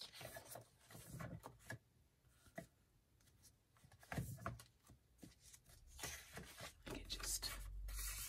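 Faint rustling and light taps of paper being handled as journal pages and a paper piece are shifted about, with a quieter stretch in the middle and busier rustling near the end.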